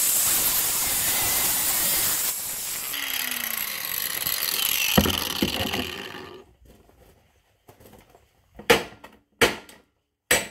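Power tool cutting into the metal front axle of a Yamaha Moto 4 ATV, a loud steady noise for about six seconds that then dies away. Three hard sledgehammer strikes on the axle follow near the end.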